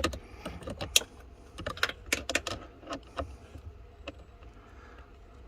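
Irregular metal clicks and clinks from a small 8 mm ratcheting gear wrench being worked on the blend door actuator's bolts. The clicks are densest in the first three seconds and thin out after that.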